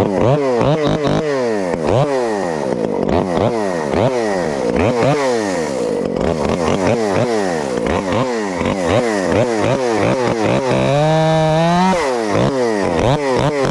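Modified Craftsman chainsaw with a homemade muffler and cold-air intake, revved in quick throttle blips about twice a second, then held at high revs near the end.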